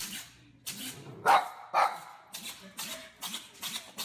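A dog sneezing: two short, sharp sneezes about half a second apart, a little over a second in, with fainter snuffles around them.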